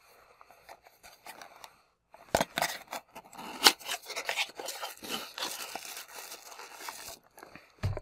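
Small cardboard box opened by hand and a dropper bottle pulled out: crinkly scraping and rustling of paperboard with sharp clicks from about two seconds in, and a short low bump near the end.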